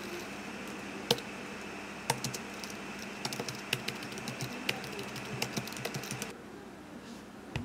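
Typing on a computer keyboard: irregular key clicks with a few louder taps, over a steady low background hum.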